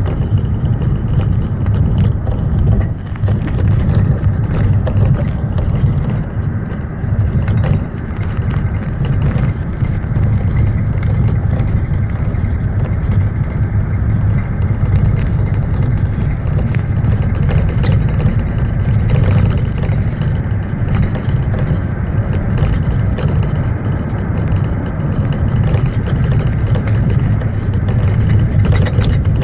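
BMW E38 on the move, with a steady low road rumble and irregular knocks from the rear suspension: the knocking of worn rear shock absorber mounts.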